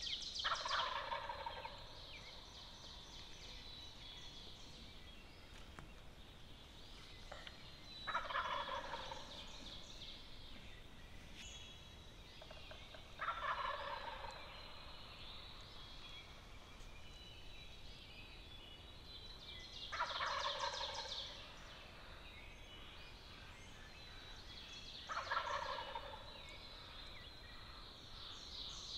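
Wild turkey toms gobbling in the distance: five separate gobbles, each about a second long, spaced five to seven seconds apart.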